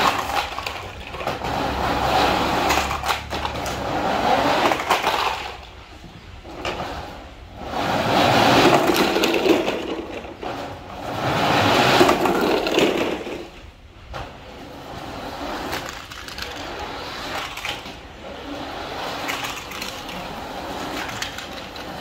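Plastic toy trucks rolling down a corrugated metal sheet, their wheels rattling and rumbling over the ridges. Several runs of a few seconds each, the loudest two in the middle, then a quieter rattle.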